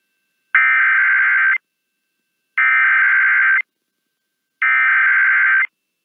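Emergency Alert System SAME data header: three bursts of warbling digital tones, each about a second long and a second apart. They are the coded header that opens the next tornado warning.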